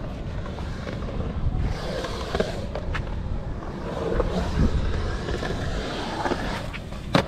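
Skateboard wheels rolling on the concrete of a skatepark bowl, with scattered clacks of the board and one sharp, loud clack near the end.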